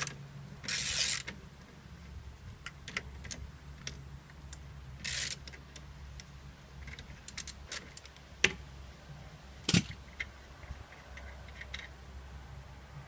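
Hand tools and metal brake parts clinking and scraping during drum brake assembly, with two sharp metallic knocks about eight and a half and ten seconds in, over a low steady hum.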